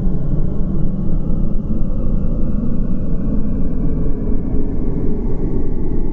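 Loud, deep rumbling drone from an ambient music track, with faint high tones sliding slowly, one down and one up, until they meet.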